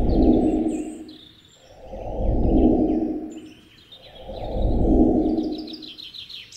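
Small birds chirping and twittering, with a quick run of chirps near the end, over three slow, loud swells of rushing noise about two and a half seconds apart.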